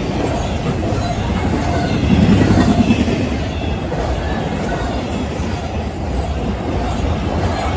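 Double-stack intermodal freight train passing close by: steady rumble and clatter of steel wheels on the rails as the container well cars roll past, with a louder surge about two seconds in.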